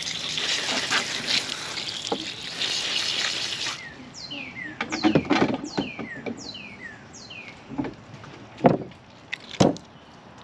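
Garden hose spray nozzle hissing as it rinses out a gutted bluefish's belly cavity, for about four seconds before it shuts off. After that, high chirps that slide downward repeat, with a few sharp knocks.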